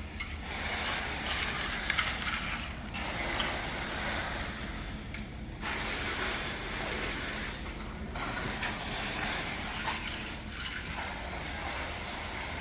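Wet concrete being poured and worked for a driveway: stretches of scraping and sliding, each about two seconds long, repeat several times over a steady low engine rumble.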